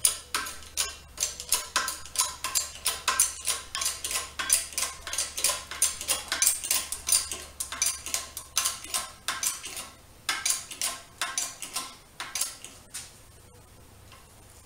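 Handle of a 20-ton hydraulic bottle jack on a shop press being pumped, rattling with sharp metallic clinks about three times a second, which stop about twelve seconds in. The press is pushing a new front wheel bearing into the wheel hub through a socket.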